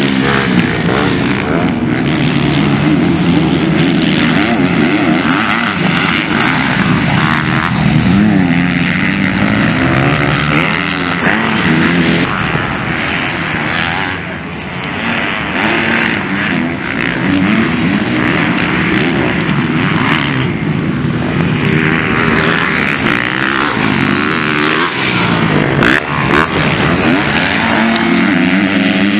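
Motocross bikes racing past. Their engines rev hard, with the pitch climbing and falling again and again as the riders accelerate, shift and back off. The sound eases briefly a little before halfway.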